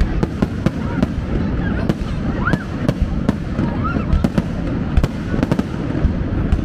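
Aerial fireworks bursting overhead: a dense, irregular run of sharp bangs and crackles, several every second, over a continuous rumbling din.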